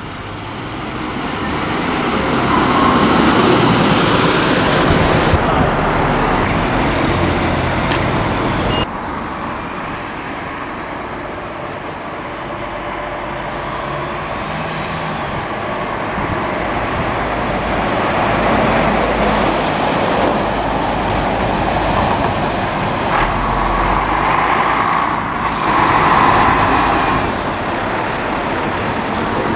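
Diesel bus engines and road traffic: buses running and pulling past in the street. The sound breaks off abruptly about nine seconds in and carries on as another stretch of traffic that grows louder towards the end.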